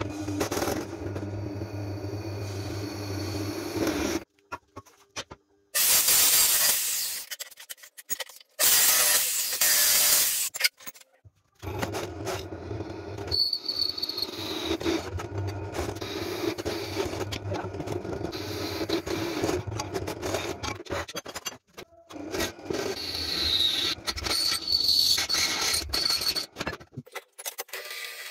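Bench drill press running as a twist bit cuts through square steel tubing: a steady motor hum with scraping, and a high squeal from the bit at times. The sound breaks off and restarts several times, and two brief loud rushing noises come in the first half.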